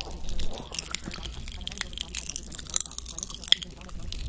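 Dense close-up clicks and crackles of the ASMR mouth-sound kind, with a steady low hum beneath.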